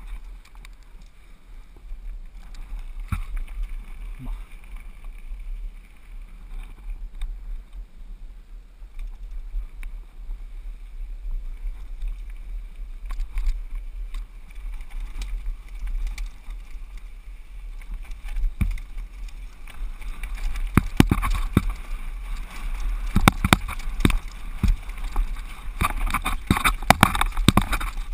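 Downhill mountain bike on a dirt trail, heard from the rider's own camera: steady wind rumble on the microphone with tyre noise, and the bike rattling and knocking over bumps. The knocks come thick and loud in the last third.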